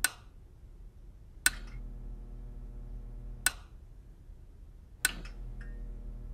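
Four sharp clicks, about one to two seconds apart, as TV channels are flicked with a remote. A faint steady electrical hum runs underneath.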